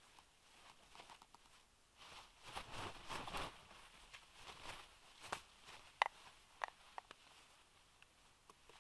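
Young black storks flapping their wings on the nest, a stretch of wing beats and nest-stick rustling, then two sharp clicks about two-thirds of the way through.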